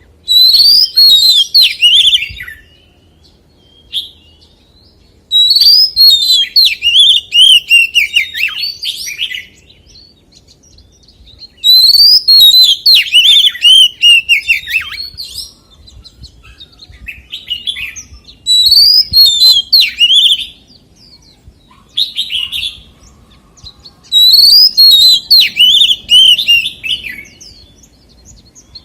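Oriental magpie-robin singing: loud bouts of rapid, varied whistled phrases, five bouts of two to four seconds each with short pauses between.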